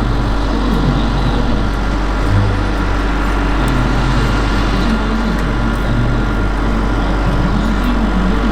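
Radio-controlled scale model helicopter, a Bell 230, running steadily: constant rotor and motor noise with a thin steady whine over it.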